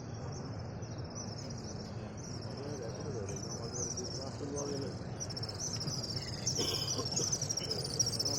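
Many small birds chirping rapidly in high-pitched, overlapping short notes, growing busier and louder over the second half, over the low murmur of a crowd.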